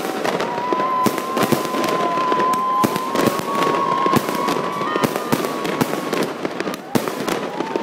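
Fireworks battery firing from the ground: a fast, irregular string of bangs and crackles, with a steady high whistle running under them for about the first five seconds.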